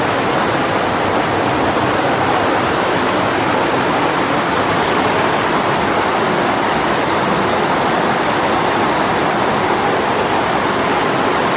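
Steady rush of fast-flowing water in the Hasa (Zered) stream.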